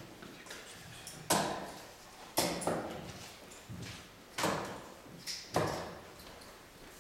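Sharp knocks of steel-tip darts on a bristle dartboard: four loud ones about a second apart and a couple of fainter ones, each tailing off briefly in the hall.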